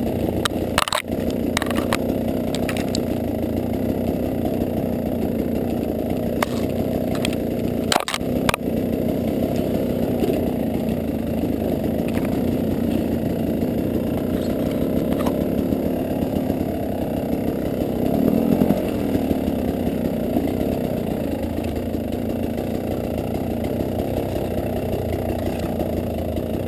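KTM dirt bike engine running steadily on a rough forest trail, with sharp knocks about a second in and twice around eight seconds in.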